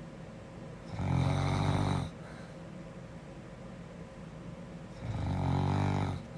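A girl snoring: two low snores, each about a second long, about four seconds apart.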